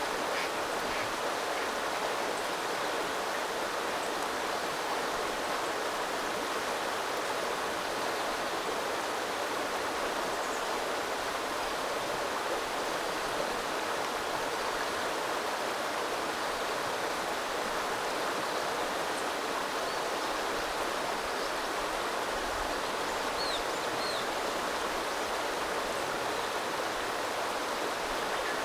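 Small river flowing steadily over stones, a constant rushing babble. Near the end, two faint short high chirps, likely a small bird.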